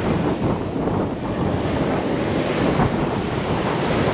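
Sea waves washing onto the beach in a steady rush, with wind buffeting the microphone.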